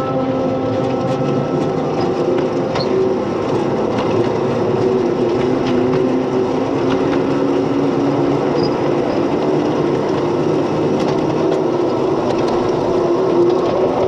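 7¼-inch gauge miniature mining locomotive running on its track: a steady motor hum, with light clicks from the wheels on the rails.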